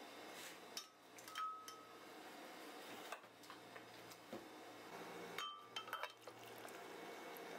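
A metal spoon scooping soft cooked cauliflower from an aluminium saucepan into a glass blender jug, with light scraping and a few clinks against the pot and glass. There is one ringing clink about a second and a half in and a quick cluster of clinks around five to six seconds.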